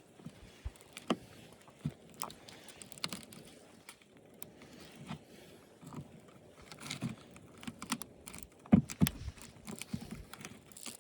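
Scattered clicks, taps and light rattles of plastic and metal parts being handled and pried at while an old television is taken apart by hand, with a couple of louder knocks about nine seconds in.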